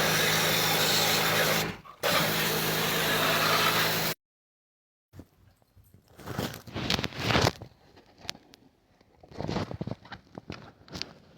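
A motor-driven machine runs steadily with a loud hiss and a low hum, cuts out for a moment about two seconds in, then stops abruptly. After a short gap comes a run of irregular scraping and rubbing.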